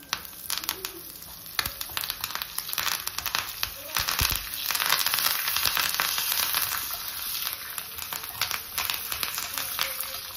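Fresh curry leaves and a dry red chilli spluttering and crackling in hot oil in a small steel tempering pan as it is stirred. This is the final stage of a South Indian tadka (oggarane). The crackle builds about a second in and is loudest around the middle.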